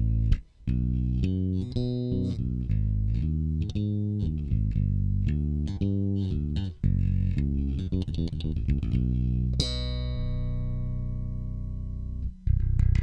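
Dingwall electric bass played through a tube channel strip and SansAmp, with the low EQ boosted at 120 Hz to give the low end body. It plays a line of single notes with a couple of brief breaks, then lets one note ring for about two and a half seconds near the end.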